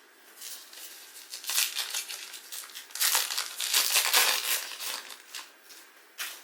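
Plastic trading-card pack wrapper crinkling and crushing as it is handled. It comes in uneven bursts that start about half a second in and are loudest around the middle, with one short crackle near the end.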